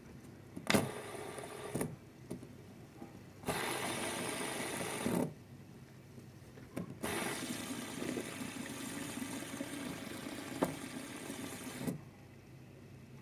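A plastic fidget spinner flicked by hand on a wooden tabletop three times: each flick starts with a click and a whirring spin of one to five seconds, and the last spin is stopped by hand with a click.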